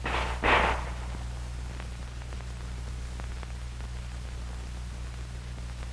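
A single M1911 .45 pistol shot, a short muffled bang about half a second in. It is followed by the steady hum and hiss of an old film soundtrack with a few faint clicks.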